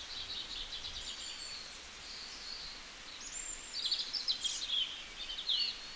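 Small birds chirping and trilling over a steady outdoor hiss, with quick runs of high chirps near the start and a busier burst of calls, including a looping whistle, from about three to five and a half seconds in.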